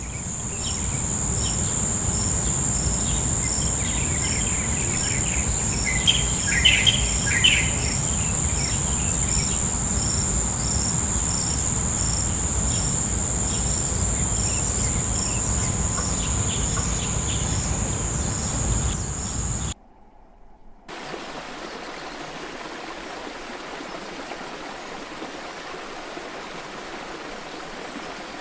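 Ambient nature recording: a steady high insect trill, like crickets, over a low rumble of water, with a few bird chirps about six to eight seconds in. About twenty seconds in it cuts out, and after a second of quiet a steady hiss of rushing water, like a stream or waterfall, takes over.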